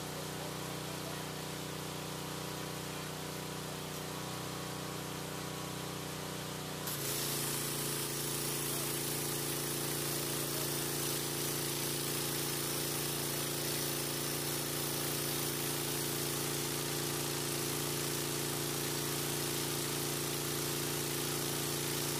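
Pressure washer engine running steadily. About seven seconds in the wand starts spraying: a loud hiss of water jetting against house siding joins in, and the engine's note shifts as it takes the load.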